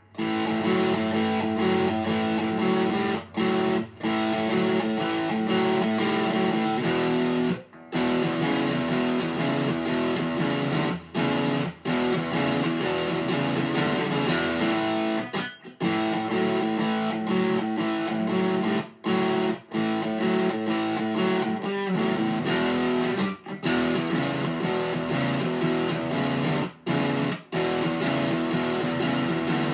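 Electric guitar with large single-coil pickups, played through an amplifier picked up by an SM57, playing a chordal riff. Short breaks fall between phrases every few seconds.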